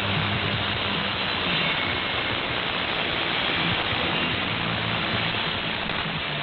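Shortwave AM signal on 3955 kHz in synchronous AM mode: a steady hiss of static and band noise, with faint rock music and low bass notes underneath.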